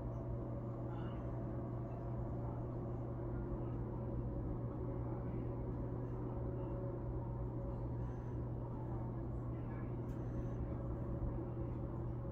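Steady low mechanical hum with a fainter higher tone above it, unchanging throughout.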